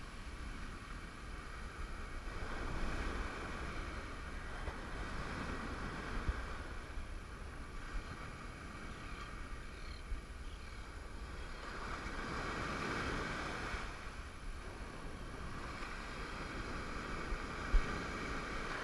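Ocean surf breaking and washing up the beach in slow swells, with wind rumbling on the microphone. A few faint knocks, the sharpest one near the end.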